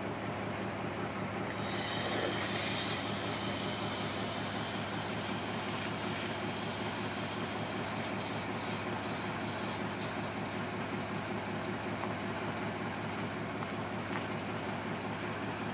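Air-cooled six-cylinder Deutz diesel of a Magirus-Deutz fire truck running steadily, driving its built-in centrifugal pump. A loud hiss comes in about a second and a half in, peaks about a second later and fades out by about eight seconds in.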